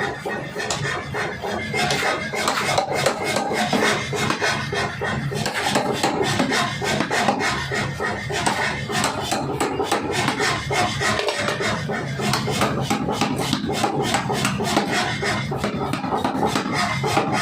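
Pneumatic forging hammer striking a hot steel blank in rapid repeated blows, several a second, over the steady hum of the machine.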